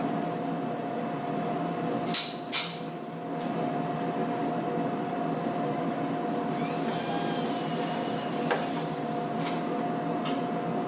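A machine running steadily with a constant hum, with two sharp knocks about two seconds in and another single knock a little past the middle.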